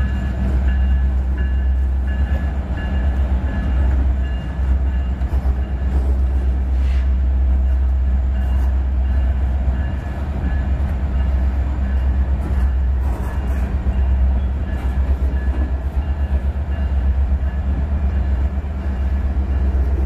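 Freight train cars rolling past at close range: a loud, steady low rumble of steel wheels on rail with occasional clanks. A faint high ringing repeats about twice a second through the first half.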